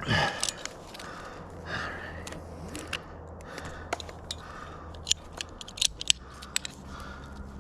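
Hand saw cutting into a pine limb: short strokes about a second apart, with scattered sharp clicks and scrapes.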